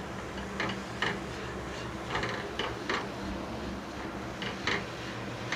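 Spatula scraping and stirring a thick, sticky mix of jaggery syrup, roasted flattened rice and nuts around a pan, in short strokes every half second to a second, over a low steady hum. The mixture has cooked down to the stage where it can be rolled into ladoos.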